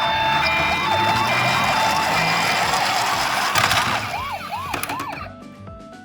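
Toy ambulance siren sounding in fast rising-and-falling chirps, about three or four a second, over background music, fading out over the last two seconds.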